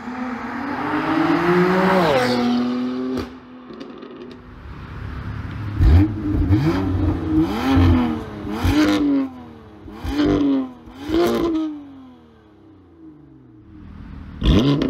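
BMW M3 Competition's twin-turbo inline-six with its exhaust valves closed. First the car accelerates past, the engine note rising and then dropping as it goes by. Then, standing still, it is revved in about five short blips roughly a second and a half apart, with one more near the end.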